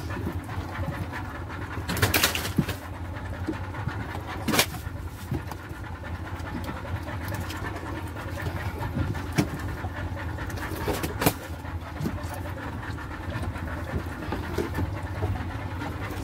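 Handling sounds of fish being taken from a styrofoam fish box: a few sharp knocks and thumps, about 2, 4½ and 11 seconds in, over a steady low hum.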